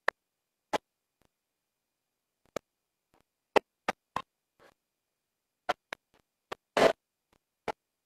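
Irregular short clicks and knocks, about a dozen, with near silence between them and one slightly longer knock near the end.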